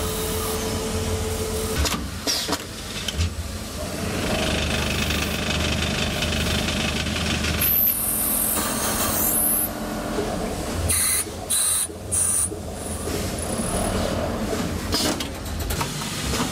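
Automatic turning machines machining copper-alloy valve bodies: machine motors running with cutting and chip noise. Several short, high hissing bursts come near the middle.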